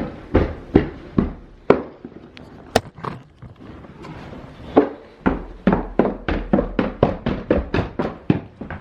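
Knocks and thumps of a heavy oven being moved, scattered at first, then a fast even run of about three or four bumps a second from a little past halfway.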